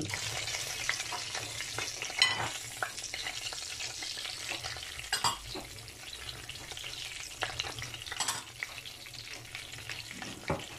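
Ground spices, red chilli powder among them, sizzling in hot oil in a non-stick kadai as they are stirred with a wooden spatula. The steady hiss is broken four times by sharp knocks against the pan.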